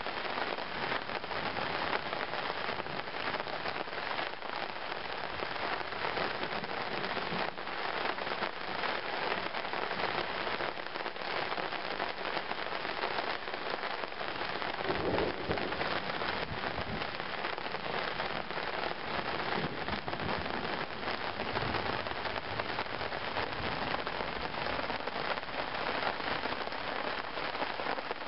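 Steady rain falling, a dense patter of many separate drops.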